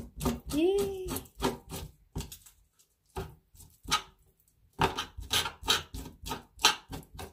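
A run of sharp knocks and clatter from kitchen utensils, a few a second, pausing briefly about two seconds in, then going on. A short wavering tone sounds about half a second in.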